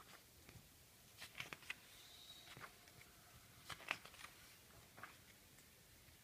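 Magazine pages being turned by hand: soft paper rustles and flicks, one page turn about a second and a half in and another about four seconds in, with a fainter rustle near the end.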